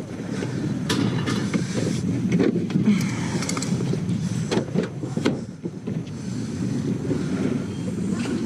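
Steady low rumble with scattered sharp knocks and clinks as curbside scrap is handled.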